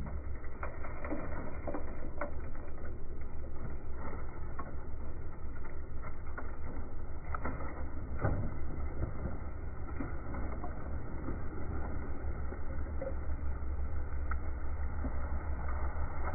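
Cat 303.5 mini excavator's diesel engine running with a steady low rumble while a mass of dirt and clods slides down and tumbles over a model train, with scattered knocks and clatters of falling soil and stones.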